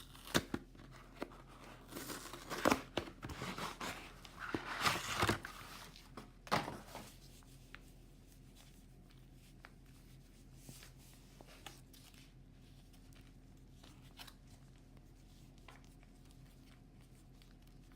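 MRE retort pouch torn open by hand: several rough tearing and crinkling bursts over the first seven seconds. After that it is quiet, with a faint steady hum and a few light ticks.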